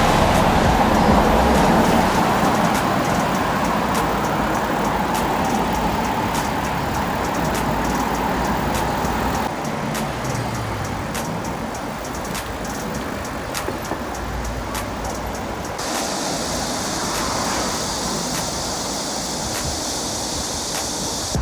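Street traffic and wind noise picked up while cycling through the city, a steady rush with a low rumble and scattered small clicks. The rush eases a little about halfway through, and a steady high hiss joins it near the end.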